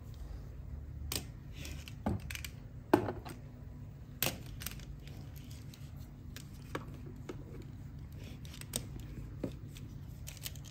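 Light clicks and taps of a small plastic-and-metal toy model bicycle being handled and set down on a tiled floor, scattered irregularly, the sharpest about three seconds in.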